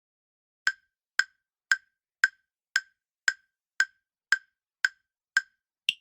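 Quiz countdown-timer sound effect: sharp clock-like ticks, about two a second, eleven in all, the last one higher in pitch, counting down the answer time.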